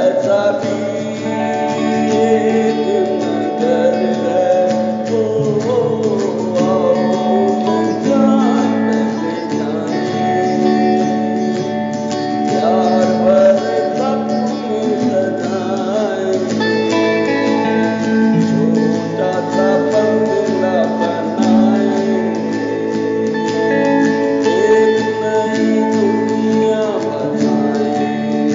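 A Hindi song played on acoustic rhythm guitar, with singing.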